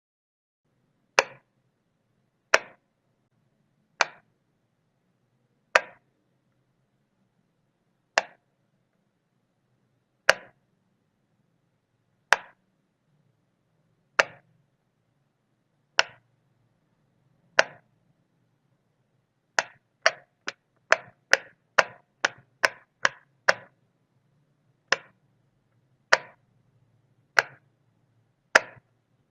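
A wall light switch being flipped on and off, each flip a single sharp click. The clicks come one every second or two, speed up to a quick run of about ten, two or three a second, about two-thirds of the way through, then slow again to about one a second.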